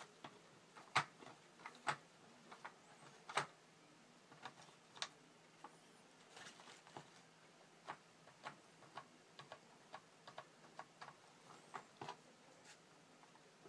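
Faint, irregular small clicks and crinkles of masking and tissue paper being peeled slowly off a spray-painted plastic model tank, with a few sharper clicks in the first five seconds.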